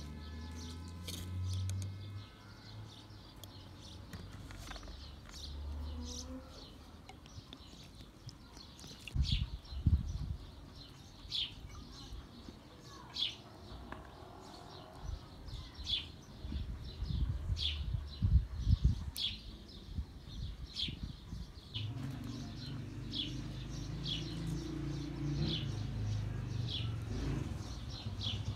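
A small bird repeating a short, high chirp about once a second, with a few dull low thumps in the middle.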